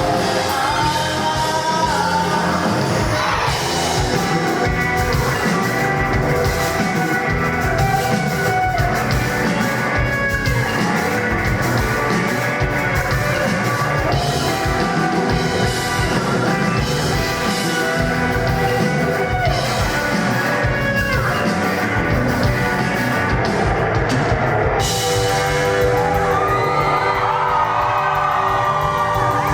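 Live rock band playing with singing: electric guitar, bass and drum kit under a sung vocal line, filling a concert hall. The cymbals drop out for a moment about 23 seconds in, then the band comes back in full.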